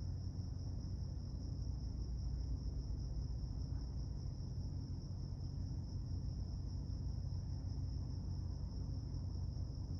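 Steady low droning hum that never lets up, like several generators or helicopters running together. A thin, constant high-pitched whine sits above it.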